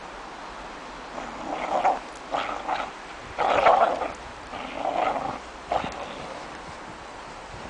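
A dog growling in about five short bursts while it tugs on a springpole rope with its jaws.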